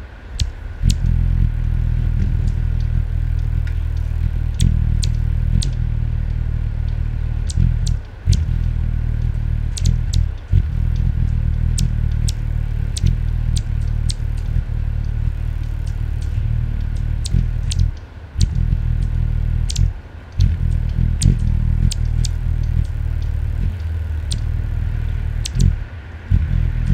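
Wings of Anna's hummingbirds hovering close to the microphone: a low, steady hum that breaks off briefly several times, with short sharp high ticks scattered through.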